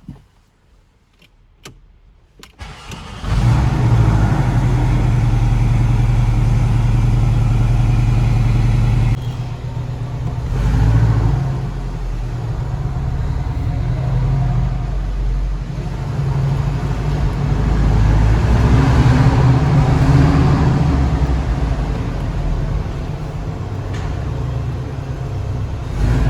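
A few sharp clicks, then a Porsche 718 Boxster engine starts about three seconds in and runs loud and steady. After about six seconds it drops to a lower level and keeps running, swelling and easing in level.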